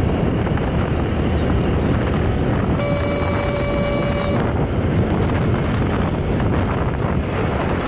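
Riding noise on a moving motorcycle: wind rushes over the microphone above the engine. About three seconds in, a vehicle horn sounds once, held for about a second and a half.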